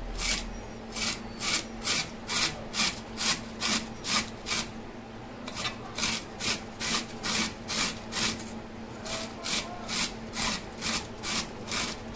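Peeled raw beetroot being grated by hand: rhythmic rasping strokes, about three a second, with a short pause about five seconds in.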